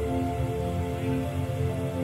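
Background music: a melody of short held notes over a sustained low bass.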